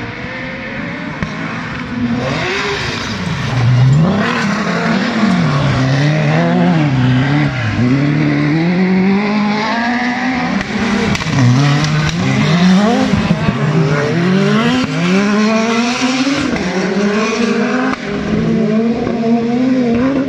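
Autocross race buggies racing around a dirt track, their engines revving up and dropping back over and over through gear changes and corners. It gets louder about two seconds in.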